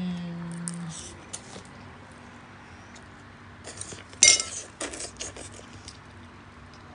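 Metal chopsticks clicking against a glass plate of noodles, a few light taps and one loud ringing clink about four seconds in.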